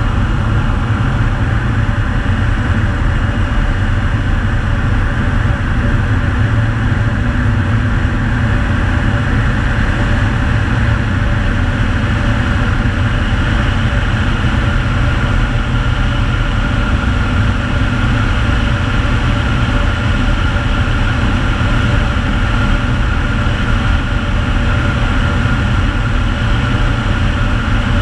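Air Tractor 502XP's PT6A turboprop engine and propeller running steadily in flight, heard from inside the cockpit: a loud, even drone with a steady high whine that grows a little stronger about halfway through.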